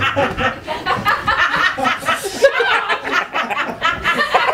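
People chuckling and laughing amid overlapping talk.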